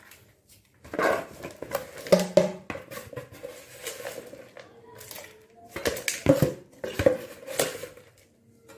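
Hands working potting mix of compost, cocopeat and soil in a plastic pot: scraping and rustling with small knocks against the pot, in irregular bursts.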